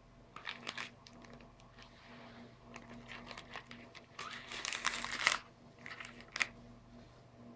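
Foil-lined plastic inner pouch of a Pocky box crinkling in short irregular bursts as it is handled and a stick is drawn out. The loudest rustling comes about five seconds in, then one sharp crackle.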